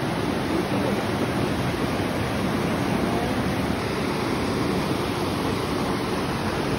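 River water rushing steadily, a continuous even roar of flowing water.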